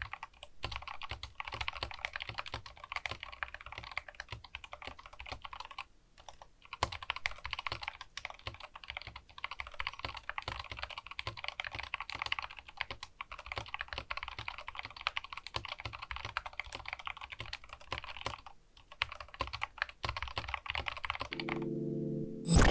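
Fast, continuous typing on a Skyloong SK64S 60% mechanical keyboard with Gateron optical brown (tactile) switches: a dense patter of key clicks and thocks with two brief pauses. Near the end, low pitched music tones come in with a loud hit.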